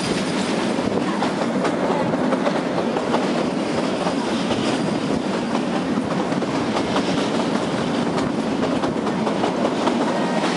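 Kalka–Shimla narrow-gauge toy train coach running, heard at an open window: a steady rumble of wheels on the track with a clickety-clack over the rail joints.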